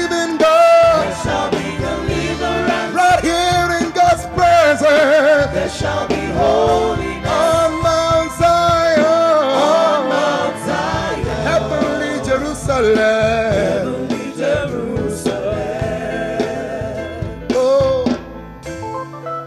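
Live gospel worship music: sustained, wavering singing over a band with drums.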